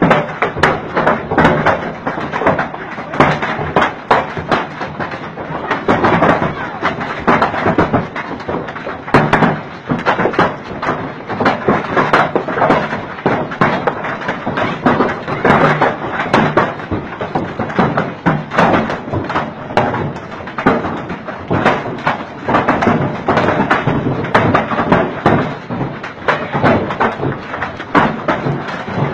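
Heavy hail, described as stones up to hen's-egg size, hitting hard: a dense, unbroken clatter of countless irregular thuds and knocks with no let-up.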